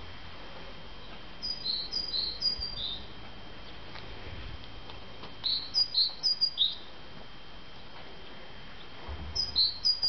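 Short, high bird-like chirps in quick groups of five or six, each group coming about every four seconds, over a faint steady high whine.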